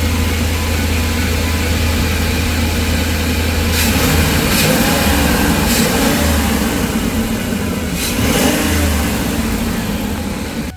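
Ford 5.4L 2V V8 in a 2006 E350 van running after its blown-out cylinder #2 spark plug hole was re-threaded and a new plug fitted, revved up twice from idle, about four and eight seconds in. It runs without the leak from the plug hole: the repair holds.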